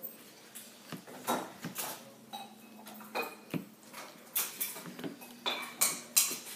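Metal spoon stirring tuna in a small can, clinking and scraping against the inside of the can in irregular strokes.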